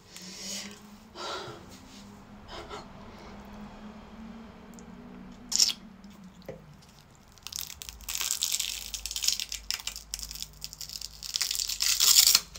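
A special-effects prosthetic ear piece being peeled off the skin: scattered crackles at first, then dense crackling and tearing through the second half as it pulls away.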